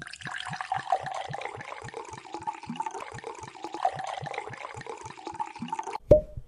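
Wine pouring into a glass: a steady splashing pour with an even pulsing of about four to five glugs a second. It stops near the end and a single sharp hit rings briefly.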